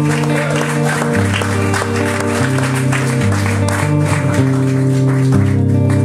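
Live instrumental music: sustained low notes that step to a new pitch every second or so, with lighter plucked guitar notes above them.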